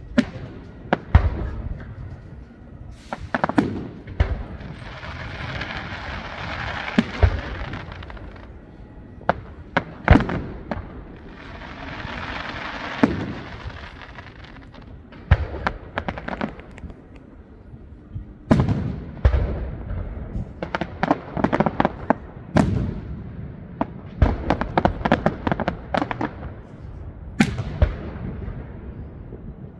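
Aerial fireworks display: repeated sharp bangs and booms of bursting shells, with two long hissing stretches a few seconds each in the first half and a quick run of many bangs in the second half.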